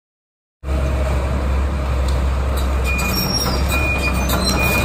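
Kobelco hydraulic excavator running with a steady low diesel drone, starting just over half a second in, with scattered knocks from the demolition work.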